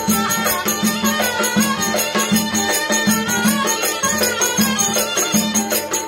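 Live Turkish folk dance music: a zurna and a kemane fiddle playing a reedy, wavering melody over a steady davul drum beat.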